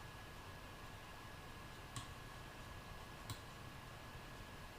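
Two light computer mouse clicks, a little over a second apart, over faint room hiss.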